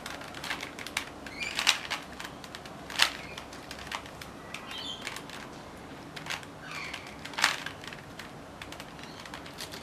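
A 3x3 Rubik's Cube being scrambled by hand: irregular plastic clicks and clacks as its layers are twisted, with a few louder snaps.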